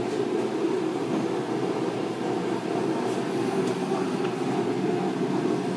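Steady low rumbling background noise, even throughout, with no distinct knocks or impacts.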